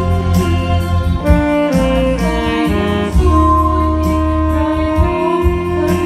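A saxophone plays the melody in long held notes, with a slide in pitch about three seconds in, over a bass line and backing band in a jazz arrangement of a ballad.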